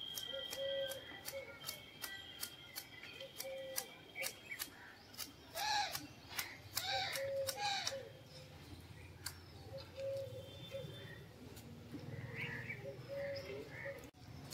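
Manual hedge shears snipping through a hedge's leafy twigs, a quick run of sharp clicks at about two or three a second, thinning out after the first eight seconds or so, with birds calling in the background.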